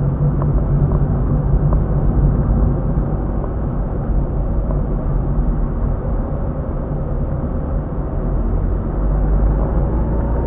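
Car driving at road speed, heard from inside the cabin: a steady low rumble of tyres and engine with a faint whine above it.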